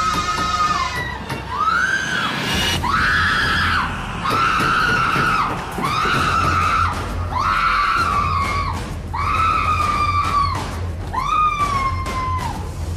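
A woman screaming in terror, about nine long screams one after another, each sliding down in pitch at its end.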